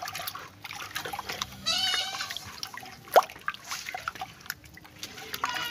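A hand stirs melted red palm oil into ngu water in a clay pot, with soft wet sloshing as the two work into a thick ncha sauce. An animal calls briefly about two seconds in, and a sharp knock sounds about three seconds in.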